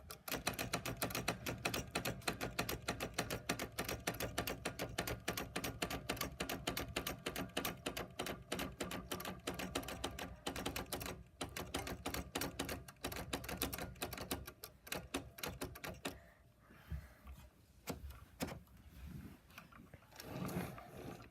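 Typewriter being typed on: a fast, steady run of key strikes for about sixteen seconds, then the typing stops and only a few scattered clacks and knocks follow.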